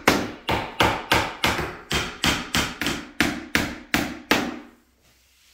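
Hammer driving finish nails into a wooden window stool: a steady run of sharp strikes, about three a second, that stops about four and a half seconds in.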